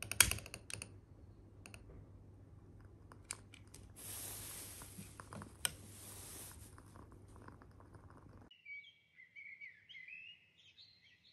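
A utility lighter clicking and lighting a WoodWick wooden-wick candle, with scattered crackles and a hiss of about three seconds in the middle. The sound cuts off suddenly and is followed by birds chirping.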